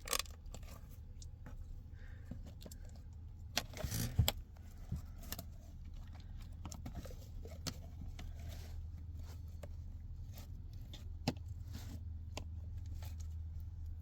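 Steady low hum of the parked truck idling, with scattered light clicks and rustles of a squishy cleaning gel being pressed onto dashboard surfaces and lifted off, and a louder burst of handling noise about four seconds in.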